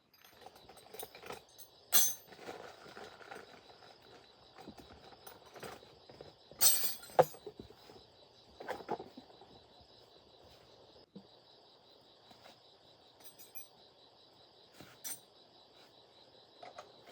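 Scattered metallic clinks and knocks, a few at a time, the loudest about seven seconds in, over a steady high insect drone.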